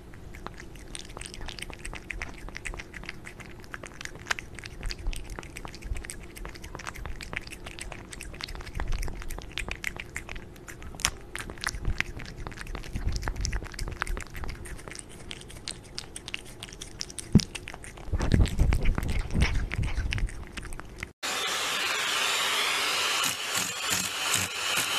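A cat licking and chewing mashed avocado off a spoon close to a microphone: a long run of small wet clicks and smacks. About 21 seconds in, this cuts to a steady machine noise.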